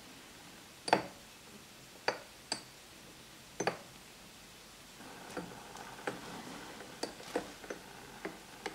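Miniature wire skimmer clinking against a small ceramic pan while scooping chicken feet from broth. There are four sharp clinks in the first four seconds, then a quicker run of lighter taps over a faint hiss.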